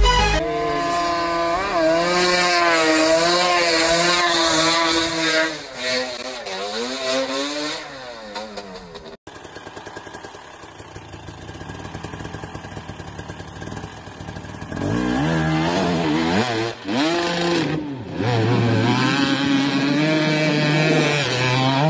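Dirt bike engines revving, their pitch rising and falling with the throttle. One bike runs loud for about nine seconds, then a sudden cut leads to a quieter stretch, and from about fifteen seconds in another dirt bike revs hard as it crosses a river.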